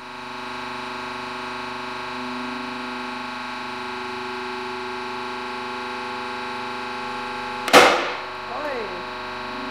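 Hydraulic press running with a steady hum as its ram bends a melamine-coated furniture board; about three-quarters of the way through, the board snaps with a single sharp crack, failing at around 186 kg of load.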